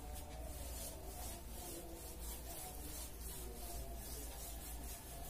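Marker writing being wiped off a whiteboard: a faint, repeated rubbing, one stroke after another, over a low steady hum.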